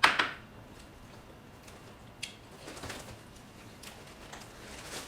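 A wet wipe pulled from its pack: a short, loud rustling rip at the start, followed by a few faint light clicks of handling.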